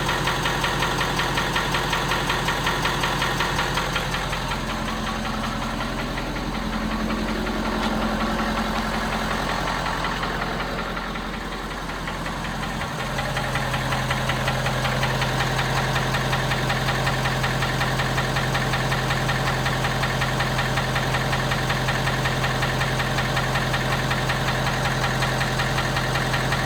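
Ford 6.7L Power Stroke V8 turbodiesel idling after a cold start with an audible knock, which the owner says fades as the engine warms. The running changes for a few seconds in the middle, then settles into a steady idle with a stronger low hum.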